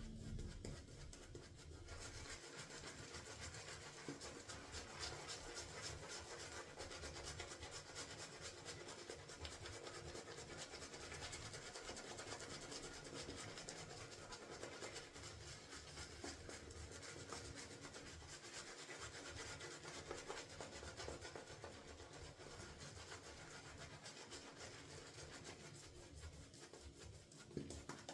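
Shaving brush swirling lather from a shaving soap: a faint, continuous scratchy swishing of wet bristles.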